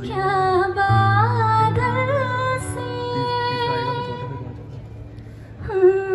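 A woman singing a slow melody into a microphone through a PA, holding long wavering notes over a low held accompaniment note. She sings softer for a moment about four to five seconds in, then comes back in strongly near the end.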